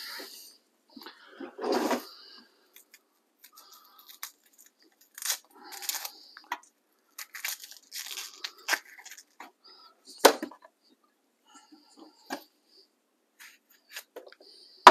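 An onion being peeled by hand, its dry papery skin crackling and tearing off in short, irregular rips, with one sharp snap about ten seconds in.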